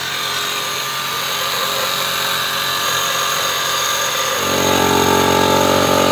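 Honda CD70 single-cylinder four-stroke motorcycle engine running steadily, out of its frame and without a fuel tank. About four and a half seconds in its note turns louder and fuller.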